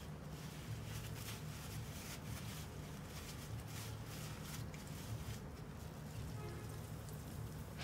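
Faint, irregular squelching of a wet cloth bag of ground soybeans being squeezed by hand, with soy milk trickling through a mesh strainer into a glass bowl, over a low steady hum.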